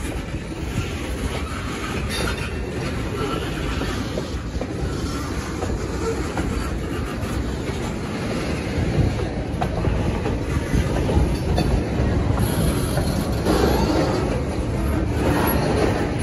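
Freight cars (loaded tank cars, then a bulkhead flatcar) rolling slowly over a street grade crossing, steel wheels clacking over rail joints and the crossing, a little louder in the second half.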